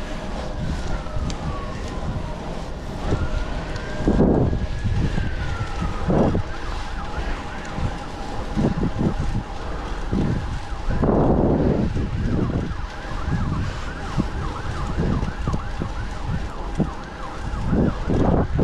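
Emergency vehicle siren passing: a slow wail sweeping down and then up and down, switching about six seconds in to a rapid yelp that runs on with a steady lower tone beneath it. Wind buffets the microphone throughout, with strong gusts now and then.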